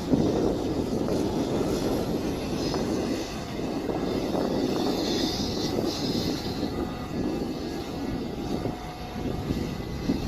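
Mini excavator's engine running while it digs, a steady engine noise whose level rises and falls a little as it works.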